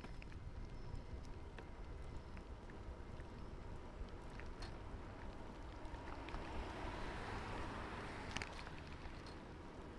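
Wind rumbling on the microphone and road noise from a moving bicycle, with scattered small clicks and rattles. A hiss swells and fades around seven to eight seconds in.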